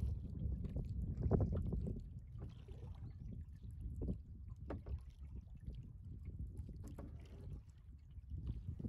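Kayak being paddled on a lake: water splashing and lapping at the hull, with a few sharper paddle splashes at uneven intervals, over a low rumble of wind on the microphone.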